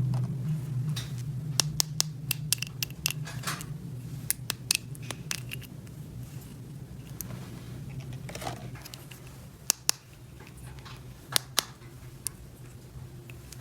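Small plastic toy pieces being handled and set down: irregular sharp clicks and taps, with a low steady hum underneath that slowly fades.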